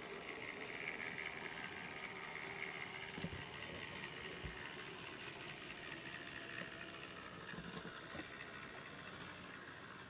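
Large-scale model trains running along the layout track: a faint steady hiss-like running noise with a few light clicks, and a faint high hum that fades after the first few seconds.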